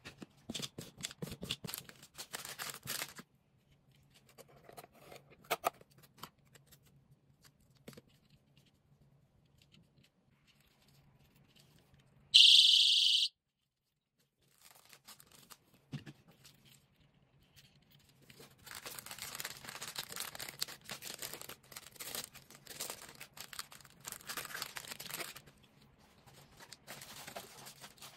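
Plastic packaging crinkling and tearing as it is handled, in bursts. About twelve seconds in there is a loud, shrill one-second blast from a cat-paw keychain personal safety alarm, starting and stopping abruptly.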